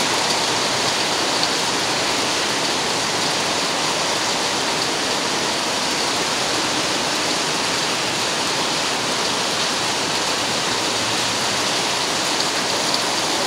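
Steady rain falling on wet, puddled concrete pavement and grass: a dense, even hiss of splashing drops.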